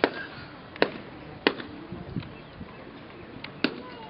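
A few sharp hand claps at uneven intervals, the loudest at the start, about a second and a half in and near the end. They are claps of the kind given around a kava bowl in a Fijian kava ceremony.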